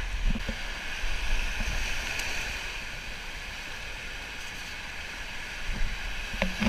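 Steady wash of ocean surf with wind rumbling on the camera's microphone. A few rustles and clicks come near the end as a life vest is pulled off.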